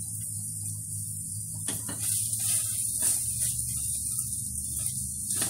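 Chopped onion sizzling in oil in a pot, a steady high hiss that grows stronger about two seconds in, over a steady low hum. A few light knocks of utensils against the pot or bowls.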